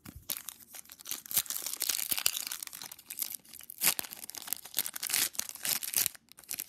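Foil wrapper of a 2007 Playoff Contenders football card pack being crinkled and torn open by hand: a dense, continuous crackle full of sharp crinkles, easing briefly near the end.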